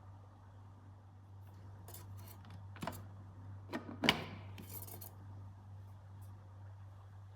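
A few clinks of kitchenware, metal or glass knocking together with a short ring; the loudest comes about four seconds in, followed by a brief rustle. A steady low hum runs underneath.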